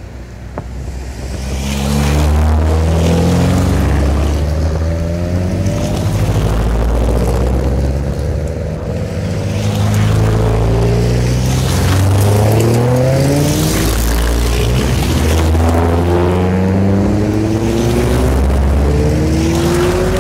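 A line of cars, among them a blue Subaru Impreza sedan, driving past one after another and accelerating away. The engine notes rise again and again as each car pulls off.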